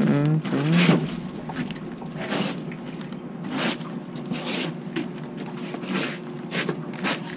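Paper banknotes rustling as bills are pulled from a wallet and counted, a short crisp rustle every second or so. A man's voice is heard briefly at the start.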